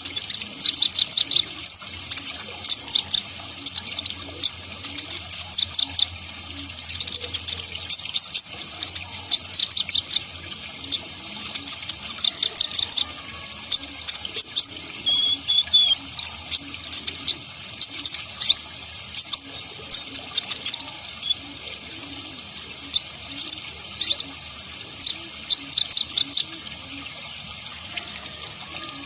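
Kolibri ninja sunbird singing energetically in rapid bursts of high, sharp chirps and short trills, clustered with brief pauses between, over a faint steady hiss.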